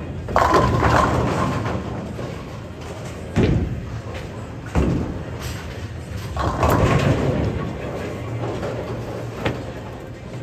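Bowling alley noise: a steady rolling rumble, with pins crashing near the start and again about six and a half seconds in, and a few sharp thuds between them.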